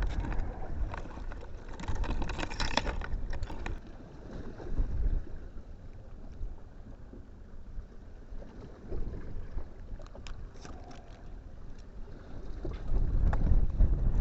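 Wind gusting over the microphone and choppy water on an open fishing boat: a low, noisy rumble that swells and eases.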